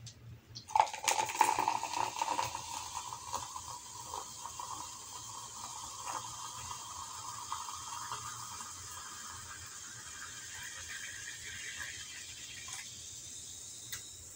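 Cola poured from a plastic bottle into a glass, splashing at first. The sound of the stream rises slowly in pitch as the glass fills, over a steady fizz of carbonation, and the pour stops near the end.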